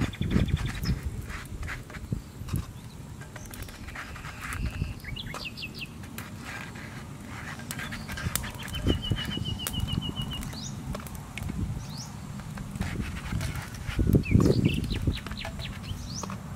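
Sauce crackling and sizzling on hot clay tiles over a charcoal fire as it is brushed on with a green stalk. Birds chirp throughout, one giving a short even trill about halfway through. A few low bumps of handling come near the start and again near the end.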